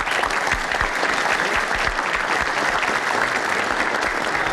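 Applause from a large crowd, a dense, steady clapping.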